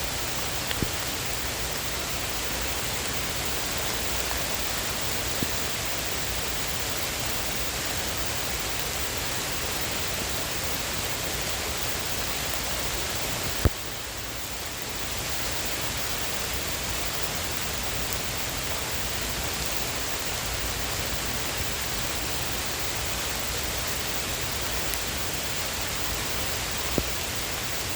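Heavy rain, a steady hiss. About halfway through there is one sharp click, after which the hiss drops for a second or so.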